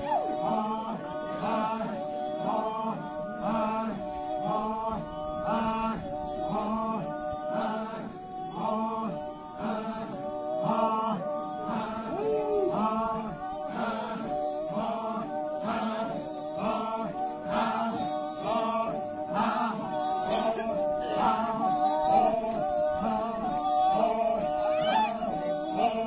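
Group of men chanting a Sumi Naga folk song in unison, a short phrase repeated over and over in a steady rhythm as accompaniment to the dance.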